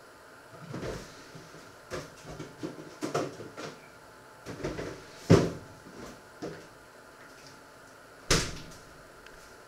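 Scattered knocks and clunks of someone handling things in a kitchen, the two loudest about five and eight seconds in.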